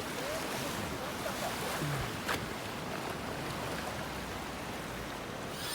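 Steady wash of surf and wind, with one faint click about two seconds in.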